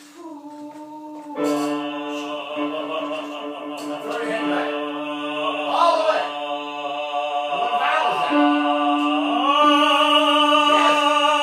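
Operatic tenor singing, holding one steady note through changing vowels and growing louder toward the end.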